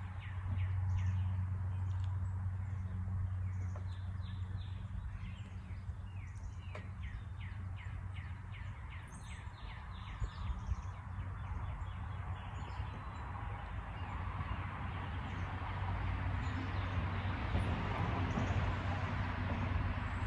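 A bird chirping over and over, short falling notes about two a second, over a steady low hum; in the latter part the chirps fade and a broad rushing noise swells.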